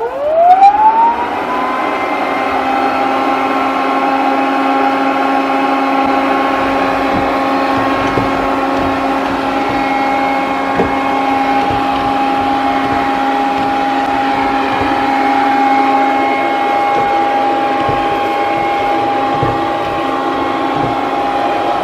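TP-Link Tapo RV10 robot vacuum's suction motor whining up to speed over about the first second and a half, then running steadily at a constant pitch.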